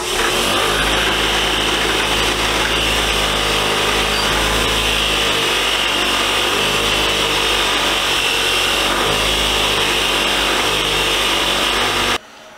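Bench grinder running with a wire wheel while a rusty steel punch is held against the spinning wire brush to clean it: a steady motor hum under a continuous high hiss. It cuts off suddenly near the end.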